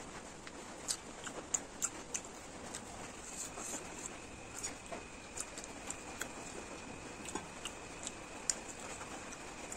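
A person eating, with irregular wet mouth clicks and smacks over a steady hiss. A faint steady high whine comes in about three and a half seconds in.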